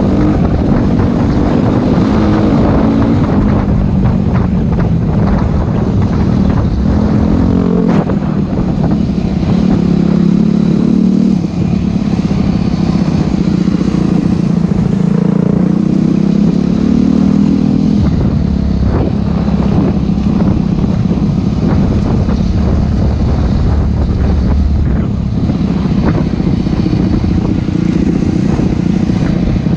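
Enduro dirt bike engine running under load on a trail, its pitch rising and falling as the throttle opens and closes, with scattered clatter.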